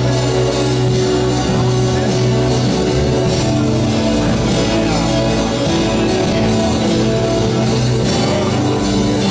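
Church worship band playing a song with electric guitar and drum kit, the notes held and the sound loud and even throughout.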